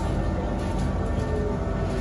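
Kawasaki Heavy Industries C151 metro train running between stations, heard from inside the carriage: a steady low rumble of the running train with a few steady whining tones over it.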